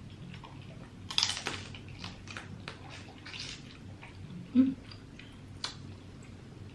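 Close-up eating sounds of a seafood boil: wet chewing and mouth noises with a few short hissing rustles and scattered clicks, and one brief louder low blip about four and a half seconds in.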